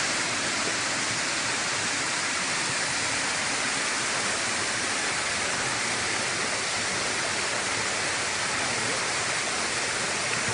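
Steady rush of stream water pouring and cascading over rocks and boulders.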